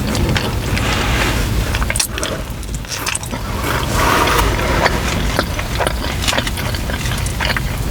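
Close-miked eating sounds: chewing with irregular wet clicks and crackles of food and mouth, over a steady low rumble.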